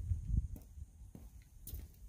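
Footsteps on a concrete driveway, walking away and fading, over an uneven low rumble.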